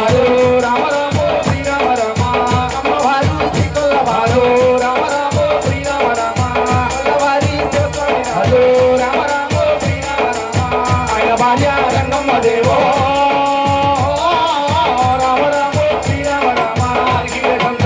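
Live devotional folk music: a voice singing a wavering melody over a steady drum beat, with hand-held rattling percussion keeping time.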